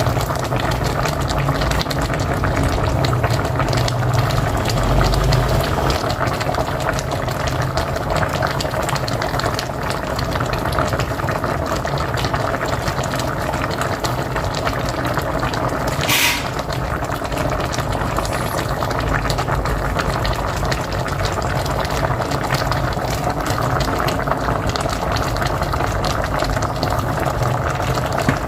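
A pot of mocotó (cow's foot) boiling hard on a wood-burning stove: steady, dense bubbling. About sixteen seconds in there is one brief sharp sound.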